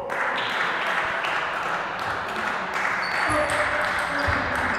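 Table tennis rally: the ball clicking off bats and table in quick, uneven succession over a steady hiss.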